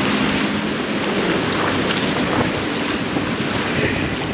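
Surf washing around the pier pilings, with wind buffeting the microphone: a steady rushing noise.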